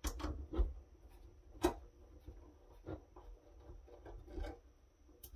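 Hand screwdriver working threadlocker-coated screws out of a sheet-metal firewall case: scattered small clicks and short scrapes of the bit in the screw heads, with a few sharper taps about a second apart. The screws are stiff with Loctite.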